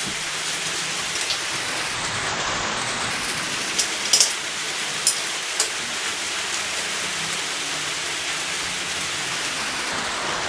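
Steady rain falling on a shed roof, heard from inside as an even hiss. A few sharp ticks and taps come between about four and six seconds in.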